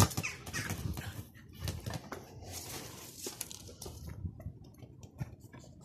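A Pomeranian rummaging among garden plants and pots: irregular rustling and scuffing with scattered light clicks and knocks, and a sharper knock at the very start.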